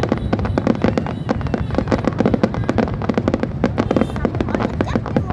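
Fireworks going off in rapid, continuous succession: a dense run of sharp bangs and crackles, many per second, with no pause.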